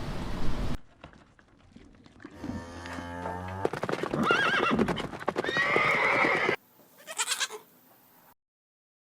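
Farm animals calling in a series of short edited clips: a low, steady call, then longer calls that waver in pitch, then a brief call, with hard cuts to silence between them.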